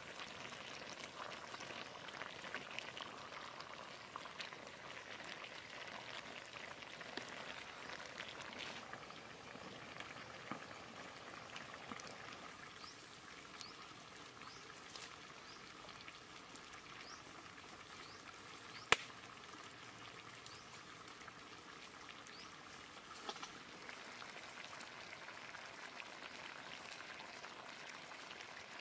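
Fish curry bubbling and sizzling in a wok over a wood fire, a steady low simmer full of small crackles, with one sharp click about two-thirds of the way through.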